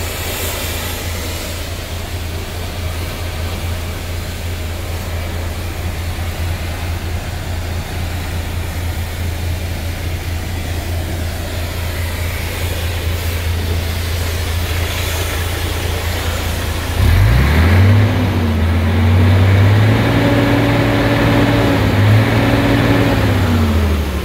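Mercedes-Benz Actros 1843 truck's V6 diesel engine idling with a steady low hum. About two-thirds of the way in it is revved up and held at raised revs, rising and falling a few times.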